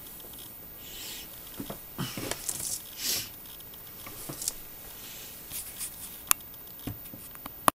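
Handling noise of 1/35-scale plastic model tank tracks being turned over and laid down on paper: soft rustles and scattered light clicks, one sharper click about six seconds in. The sound cuts off abruptly just before the end.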